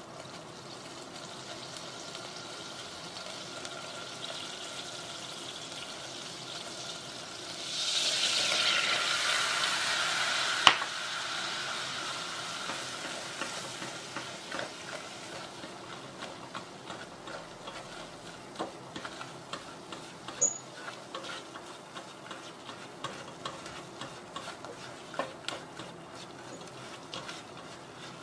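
Butter sizzling in a stainless steel saucepan. About eight seconds in, flour goes into the hot butter and the sizzle swells for a few seconds, with one sharp tap. After that a silicone spatula stirs and scrapes the flour and butter against the pan with light irregular ticks as they thicken into a paste.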